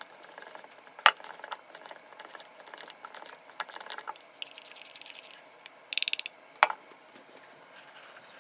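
Flour-and-water batter being stirred with a spatula in a ceramic bowl: soft scraping broken by clinks and knocks of the spatula against the bowl. The loudest is a sharp knock about a second in; just after halfway comes a quick rattle of about six taps, then one more knock.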